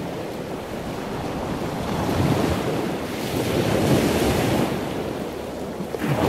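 Rushing water noise like ocean surf, swelling and fading like waves, with one swell about two to four seconds in and another near the end.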